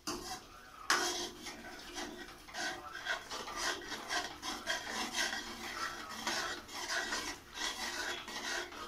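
Steel ladle scraping and stirring a thick masala paste in a steel kadai, a run of quick rasping strokes starting about a second in, as the masala cooks down.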